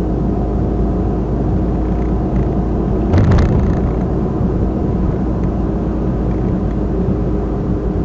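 Road and engine noise inside a moving car's cabin: a steady rumble, with a brief louder rush about three seconds in.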